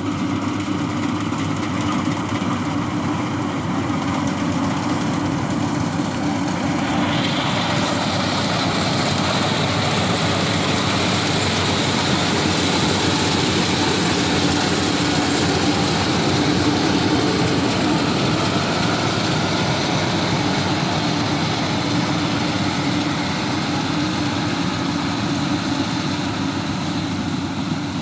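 Yanmar AW82V rice combine harvester running steadily with a low engine drone. About seven seconds in, a brighter hiss joins it.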